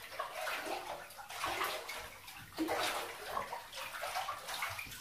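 A hand swishing and stirring the water in a filled jetted bathtub: irregular sloshes and splashes.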